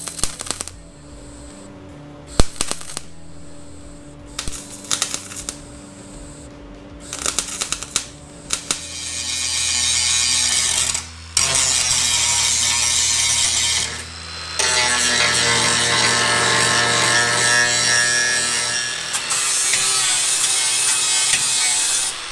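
Welding a steel rust-repair patch into a car's rear quarter panel. First come a string of short crackling bursts from tack welds. Then, about nine seconds in, a power tool runs up to a long, loud, steady grinding on the welds, broken twice by brief stops.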